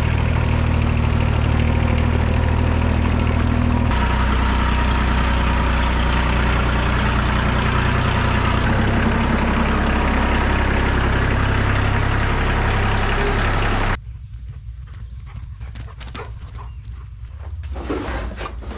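Engines of a mini excavator and a Ford 1520 compact tractor running steadily close by, in clips that change abruptly a few times. About fourteen seconds in the engine sound stops and gives way to quieter scattered knocks and footsteps on dry leaves.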